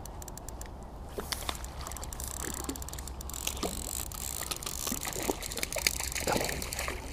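A hooked F1 carp splashing and sloshing at the water's surface as it is played in on a light match rod. There is a scatter of light ticks in the first second.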